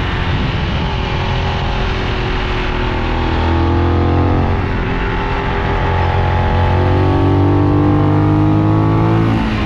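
Benelli 752S parallel-twin motorcycle engine under way, pulling up through the revs twice, with the revs dropping sharply near the end, over steady wind and road rush.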